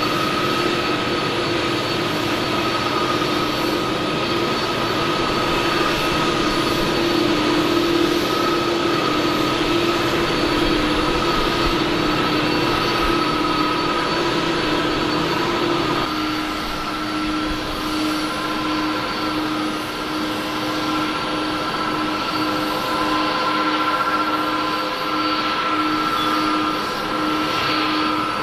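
Boeing 787-9's GE GEnx-1B turbofan engines running at taxi idle: a steady jet whine with a hum and a higher ringing tone over a rushing noise. About halfway through the hum steps slightly lower and the low rumble eases as the thrust comes back.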